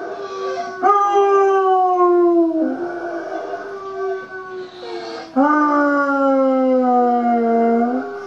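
Basset hound howling: long drawn-out howls that each slide slowly down in pitch, the two loudest starting about a second in and about five seconds in.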